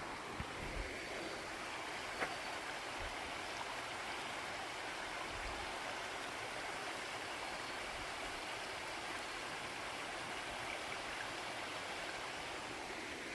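Steady rush of a flowing mountain creek, with a single sharp click about two seconds in.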